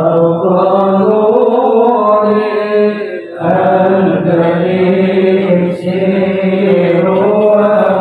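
Arabic sholawat, devotional praise of the Prophet Muhammad, chanted in long held melodic lines, with a short break about three seconds in.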